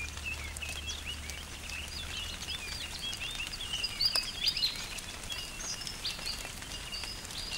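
Small birds chirping and twittering in quick, high calls over a faint background hiss. A low drone fades out over the first three seconds.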